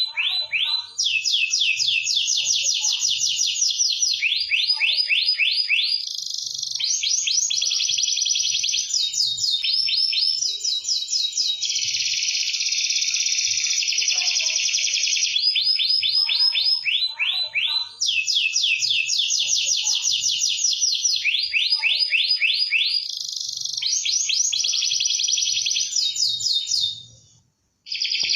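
Domestic canary singing continuously in full song: long rolling trills and fast runs of repeated notes, switching phrase every second or two. The song breaks off for a moment near the end, then resumes.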